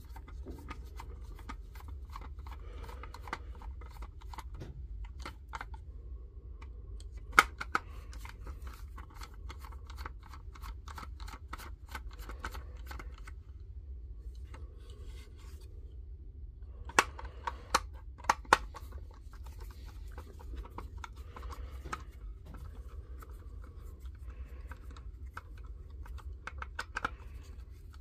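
Small Torx screws being undone by hand from the plastic housing of a Dewalt DCE089G laser level: runs of quick fine clicking and scratching, with a few sharp clicks of a tool or part being set down.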